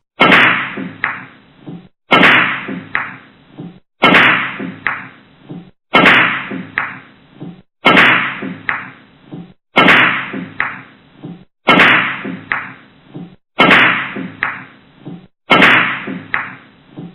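A short hit sound effect repeated nine times, about every two seconds: each time a sharp crack, then a noisy burst that fades over about a second, with a smaller second hit about half a second in.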